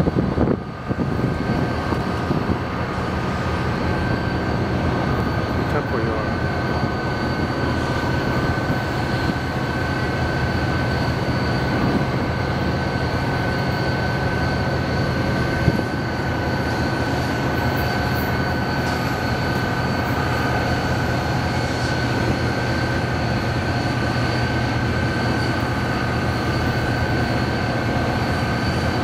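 Diesel locomotives idling: a steady low engine drone with a constant high whine over it.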